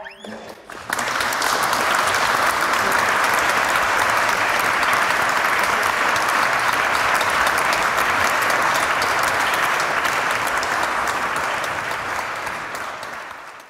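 Audience applauding: a few scattered claps, then dense, steady clapping from about a second in, which thins near the end and cuts off abruptly.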